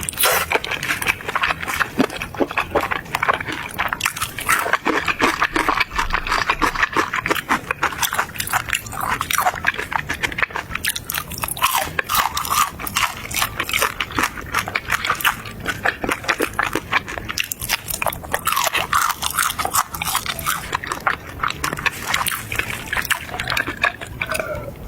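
A person eating close to the microphone, biting and chewing with a constant run of quick clicking and crunching mouth sounds.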